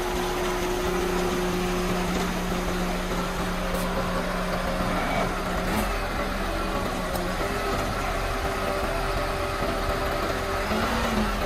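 Sinotruk concrete mixer truck's diesel engine running steadily while the rotating drum discharges concrete down the chute; the engine tone shifts about six seconds in.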